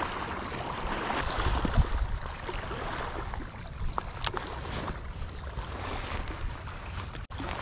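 Wind buffeting a chest-mounted action camera's microphone as a steady low rumble, with small waves lapping against the rocky shore and a few faint clicks.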